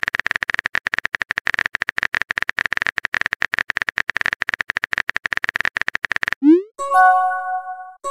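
Rapid phone-keyboard typing clicks stop about six and a half seconds in. A short rising swoop follows, then a chiming message tone as a text message pops up.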